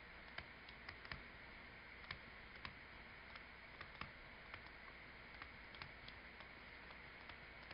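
Faint, irregular light ticks of a stylus tip tapping and stroking on a tablet screen during handwriting, over a faint steady low hum.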